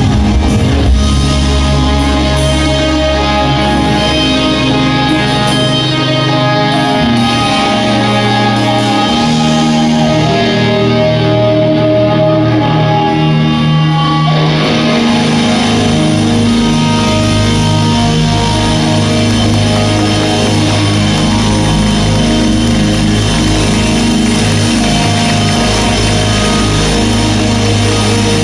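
Rock music played by a band: electric guitar chords over bass and drum kit, with no singing; the chords change about halfway through.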